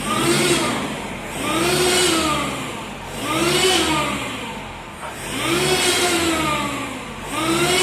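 Toyota Hilux's turbocharged engine revved repeatedly, about four revs rising and falling in pitch, each lasting roughly two seconds. Each rev carries a noise that the mechanic places at the turbocharger, which is faulty and due for reconditioning.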